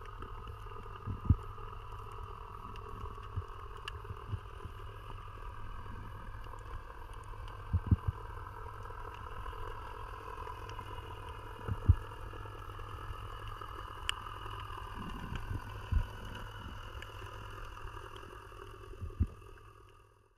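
Underwater ambience picked up by a camera in its waterproof housing: a steady low rumble with a faint steady hum over it, broken by a few dull knocks. It fades out near the end.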